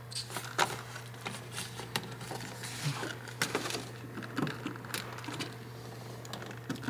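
Scattered light clicks, taps and rubbing from a hand working the rubber bulb cover and wiring behind a headlight housing, pressing the cover to seal it around the bulb socket. A steady low hum runs underneath.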